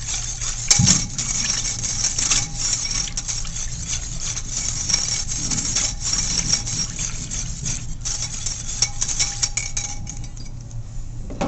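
Metal wire whisk stirring quickly through a thick white mixture of melted oils and zinc oxide in a crockpot insert, with rapid clicks and clinks as the wires strike the pot, stopping near the end. A steady low hum runs underneath.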